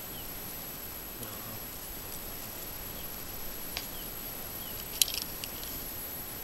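Metal forceps clicking against the hooks of a plug lure while unhooking a traíra: a few sharp clicks, the loudest a quick cluster about five seconds in, over a steady outdoor hiss and a faint high whine.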